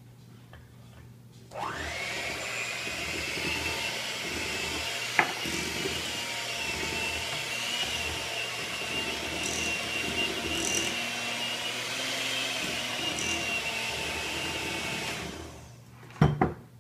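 Electric hand mixer switched on about a second and a half in, its motor whine rising and then holding steady as the beaters churn thick chocolate cupcake batter. It winds down near the end, followed by two sharp knocks.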